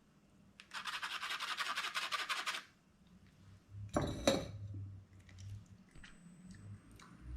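Rapid scratchy rasping for about two seconds from the cocktail strainers while a thick, foamy cream-and-egg-white drink is double-strained. A single short knock about four seconds in.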